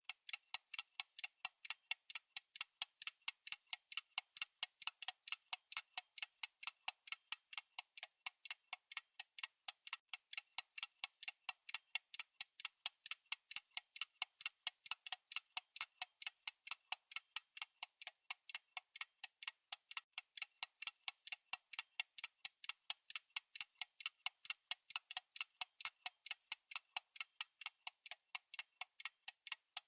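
Steady, evenly spaced clock-style ticking of a timer's tick sound effect, several light, high-pitched ticks a second.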